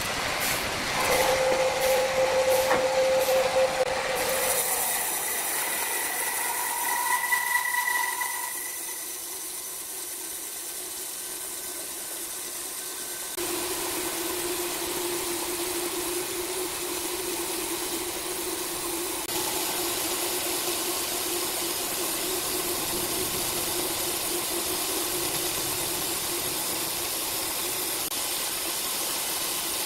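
Large band sawmill running, its blade ripping lengthwise through a thick tree trunk with a steady hiss. A loud whine in the first few seconds gives way to a steadier hum.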